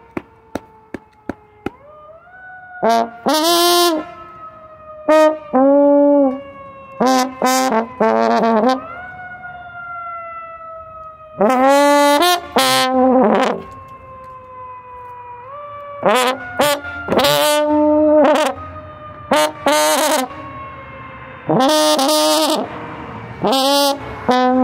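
Trombone playing a melody in loud phrases separated by short breaths, some notes held and some sliding between pitches. A few faint clicks come just before the first phrase.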